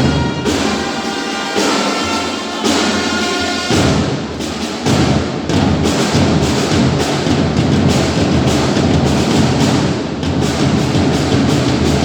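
Orchestral music with pitched, held notes, which turns about four seconds in into a dense, driving percussion beat.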